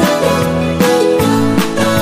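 Background music with a steady beat and held melodic notes.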